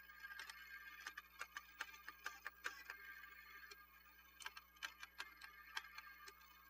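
Radio Shack Armatron toy robot arm running: faint, irregular clicking of its plastic gears, several clicks a second, over a light steady whir as the arm swings and lowers its gripper.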